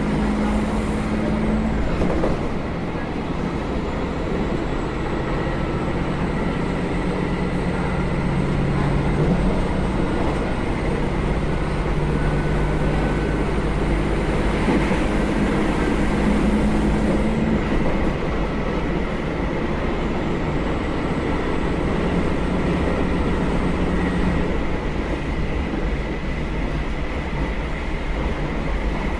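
JR Hokkaido KiHa 201 series diesel railcar running along the line, its diesel engine under way over continuous rail and wheel noise. The engine note shifts and drops out several times, around a couple of seconds in, near the middle and again later on.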